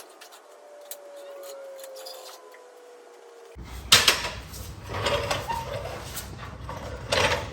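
A metal floor jack being handled: a sharp knock about four seconds in, then clanking and scraping metal, with a few louder clanks near the end.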